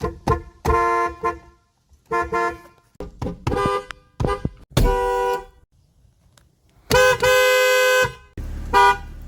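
A run of car horns from 2000s cars, one after another. Each is a two-note horn chord, sounded as quick taps and short blasts, with one held for about a second near the end.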